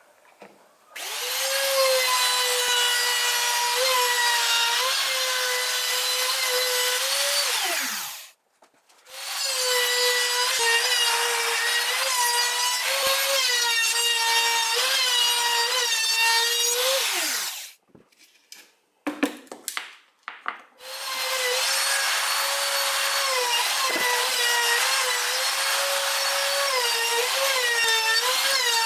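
Compact trim router running at high speed while its bit cuts a circular groove in birch plywood, the whine dipping in pitch each time the bit loads up. It starts and spins down between three runs, with a few sharp knocks of handling before the third run.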